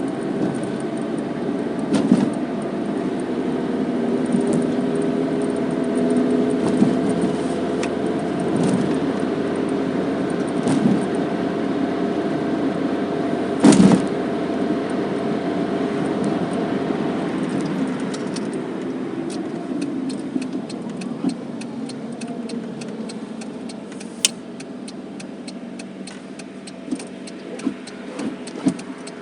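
Car engine and road noise heard from inside the cabin while driving. About two-thirds of the way through the engine drops toward idle as the car slows, and a quick, regular ticking of the turn signal starts. A single sharp knock about halfway.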